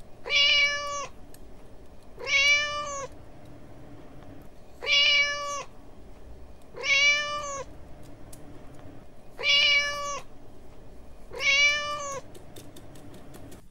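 A cat's meow, repeated six times about every two seconds, each one short and steady in pitch and identical to the others, as from a single looped cat sound effect.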